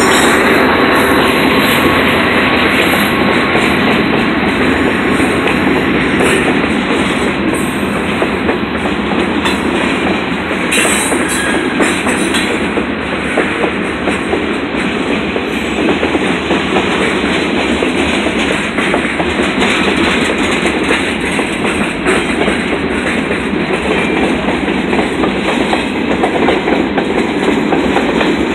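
A freight train's cars rolling past at close range: a steady rumble of steel wheels on rail, with repeated clicking as the wheels pass over the track.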